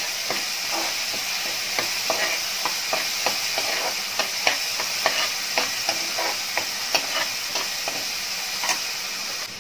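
Ginger-garlic paste, green chillies and curry leaves sizzling in hot oil in a pressure cooker, with a metal spoon stirring and knocking against the pan in frequent clicks.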